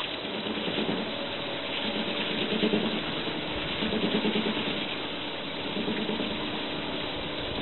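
A motor running steadily with a low hum, under a broad hiss.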